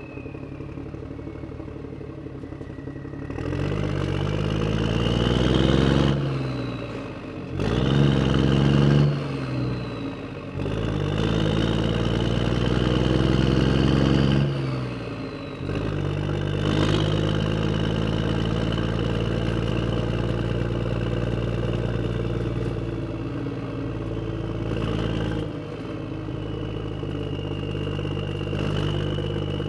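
Motorcycle engine revving up three times, its pitch rising and falling back each time, then running steadily.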